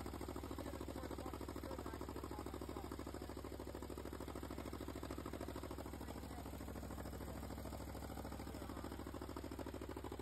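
1963 Ford 4000 Industrial tractor's gasoline engine idling steadily with an even, rapid firing pulse.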